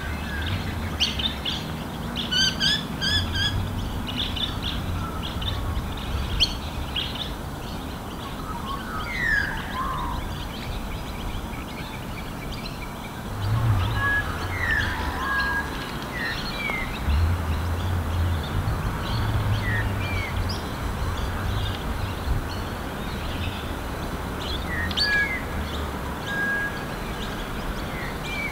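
Several birds chirping and calling, with many short high chirps and scattered brief whistled notes that slide in pitch, over a steady hiss and a low hum that comes and goes.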